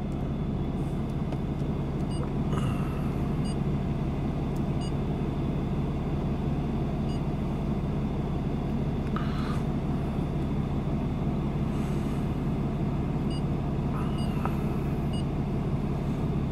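Cummins 6.7 L straight-six turbo-diesel idling, heard inside the cab as a steady low hum, with a few faint light ticks now and then.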